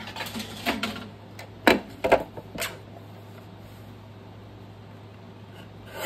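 Paper rustling, then three sharp clicks of a handheld corner-rounder punch closing on paper tags about two seconds in.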